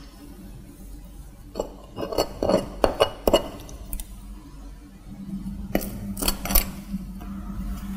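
Sharp clinks and knocks of a table knife and plastic condiment squeeze bottles handled on a wooden cutting board while sauce is squeezed onto bread and spread: a cluster of them about two to three and a half seconds in, and a few more around six seconds.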